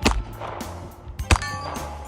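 Two .38 Special shots fired double action from a Smith & Wesson Model 327 scandium-frame revolver, one right at the start and one about 1.3 seconds later, each with a short ringing tail, over background music.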